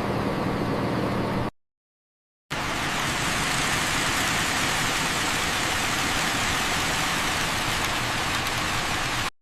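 Bus engine sound running steadily at idle, cut off abruptly after about a second and a half; after a second of dead silence a steady hissing engine-and-road noise with a faint low hum plays on until it stops just before the end.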